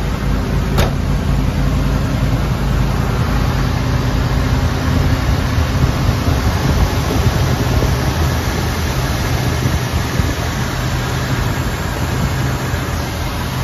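1969 Chevrolet Camaro's 396 cubic-inch big-block V8 idling steadily after a cold start.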